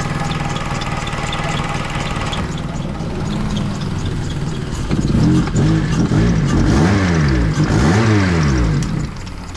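Honda car engine idling, then revved up and back down several times in quick succession during the second half.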